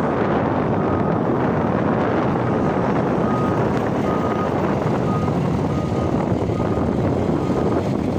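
Heavy construction machine's diesel engine running steadily under work, with faint short high tones coming and going over it.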